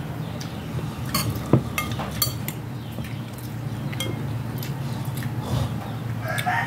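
Metal spoons clinking and scraping against a glass serving bowl and plates, with a few sharp clinks between about one and two and a half seconds in and another near four seconds, over a steady low hum.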